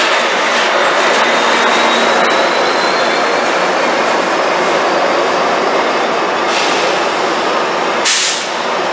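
Metrolink F59PH diesel locomotive and its passenger train rolling along the platform: a steady dense rumble of engine and wheels with a faint thin squeal and light ticks over the rail joints. A short sharp hiss breaks in about eight seconds in.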